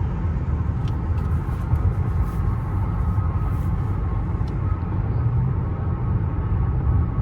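Steady low rumble of road and engine noise inside the cabin of a Mercedes-Benz S580 cruising on the highway in its normal drive mode, not Sport Plus.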